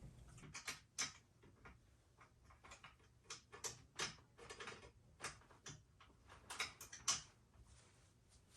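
Scattered light clicks and taps of metal parts being handled and fitted together, irregular and spaced about a second or less apart.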